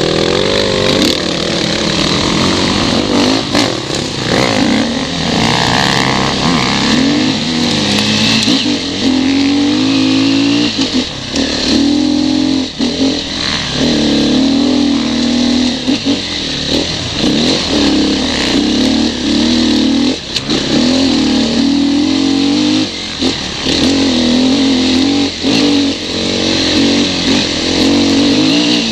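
Off-road motorcycle engine under riding load on a rocky trail, pitch rising and falling again and again as the throttle is opened and shut, with short drops at gear changes. Scattered knocks from the bike over the stones.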